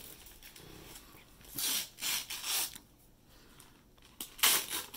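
Wrapping paper being torn and crinkled by hand: a few short rustling rips between about one and a half and three seconds in, and a louder one near the end.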